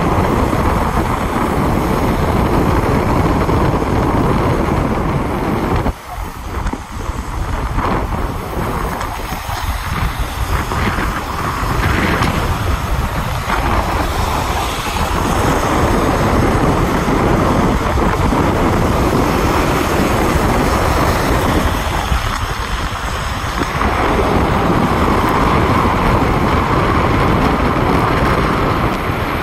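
Wind rushing over the microphone of a car travelling at motorway speed, mixed with road noise. The level drops suddenly about six seconds in, then builds back up.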